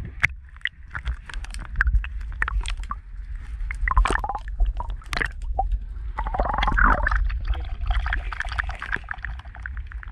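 Water splashing and gurgling, heard through a camera dipped below the surface beside an inflatable dinghy. There is a constant low rumble, many sharp clicks, and louder splashes about four seconds in and again around six to seven seconds in.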